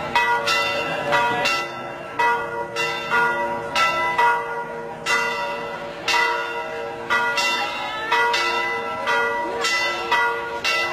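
Church bells ringing, struck about twice a second, each stroke ringing on into the next.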